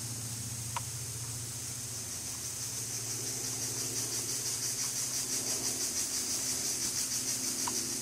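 Forest insect chorus: a high, rapidly pulsing buzz that swells and stays loud, over a steady low hum. Two brief faint chirps come about a second in and near the end.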